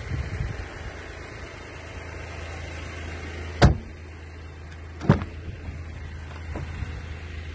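Two loud thumps about a second and a half apart, then a fainter one, over a steady low hum.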